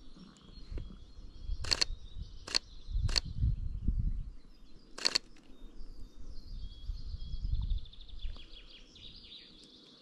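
Songbirds singing and trilling in the background, with four sharp camera shutter clicks between about one and a half and five seconds in. A low rumbling noise rises and falls under them.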